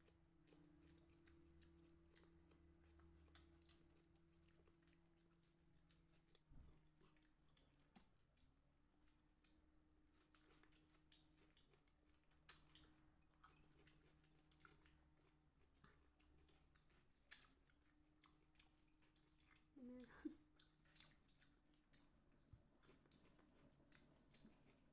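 Faint chewing and small scattered mouth clicks of people eating, over a low steady hum.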